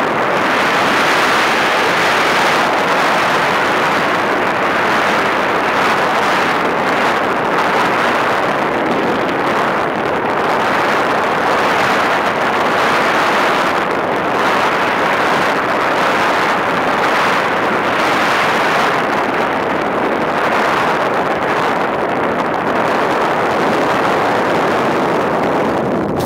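Steady rushing airflow over the onboard camera microphone of a Multiplex Easy Star foam RC plane in flight, swelling and fading every second or two.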